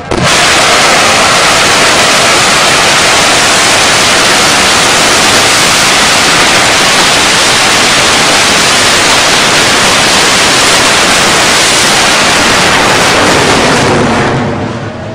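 Large bang fai, a Thai homemade black-powder rocket, firing from its launch tower: a loud, steady rushing hiss that starts abruptly, holds for about fourteen seconds, then fades near the end as the rocket climbs away.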